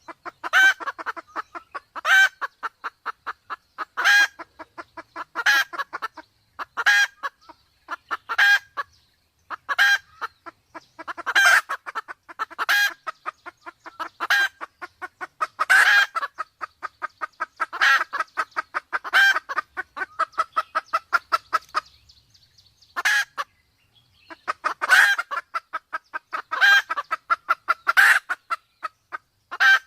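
Sumatran red junglefowl clucking in fast runs of short notes, many a second, with a louder note standing out about every one and a half seconds and a brief pause about two-thirds of the way through. It is the hen-in-breeding-condition call used as a lure to draw wild junglefowl in.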